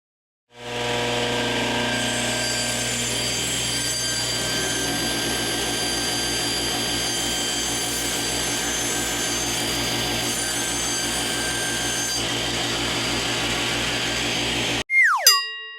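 Router running steadily while plunge-cutting wood, about 14 seconds, stopping abruptly. A brief falling electronic tone follows near the end and is the loudest sound.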